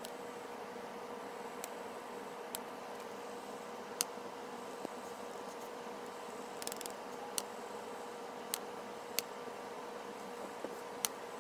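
A faint, steady hum and hiss with a few sharp, light clicks scattered through, about ten in all.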